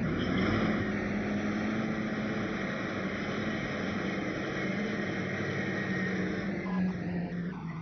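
Large off-road mining haul truck driving past, its diesel engine running with a steady low drone.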